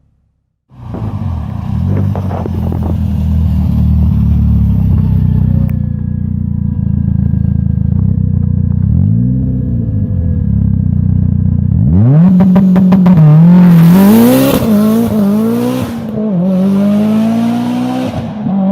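Mitsubishi Lancer Evolution's turbocharged 2.0-litre inline-four idling steadily, with one quick blip. About two-thirds of the way in it is revved hard several times in a row, the pitch rising and falling, with a loud hissy rush at the highest revs.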